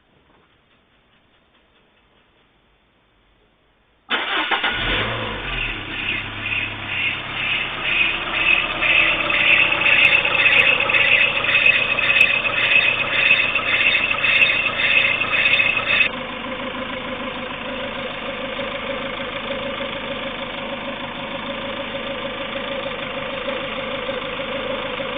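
Near silence, then a Peugeot 206 GTi's 2.0-litre RFN four-cylinder petrol engine starts from cold and idles with a loud, rhythmic, high-pitched pulsing noise, a few beats a second. This is the noise the engine makes only when cold, with the auxiliary belt removed, so the belt-driven accessories are ruled out. After about twelve seconds of this, the same engine idles five or six minutes after starting, steadier and quieter, the pulsing gone.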